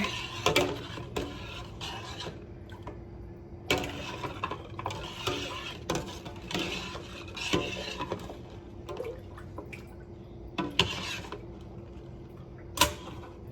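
Kitchen dishes and utensils being handled: irregular clattering and scraping every second or so, with a sharp clink near the end.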